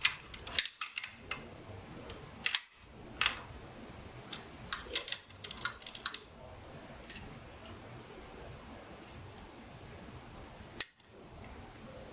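Stainless steel clamp being fitted and tightened around the sampler's sample-tube joint: a string of small metal clicks and taps, with one sharper click near the end.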